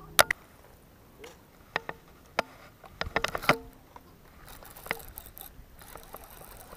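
Camera handling noise: a sharp knock just after the start, then scattered clicks and scrapes with a cluster around three seconds in, as the camera is moved and cloth rubs near the microphone.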